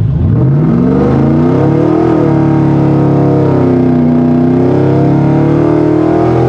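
Whipple-supercharged 2004 Ford Lightning V8 at full throttle from a standstill, heard from inside the cab: the engine note climbs steeply for about two seconds, dips briefly as it shifts, then eases and climbs again until the driver lifts near the end. The rear tires are spinning through much of the run, too much power for the traction.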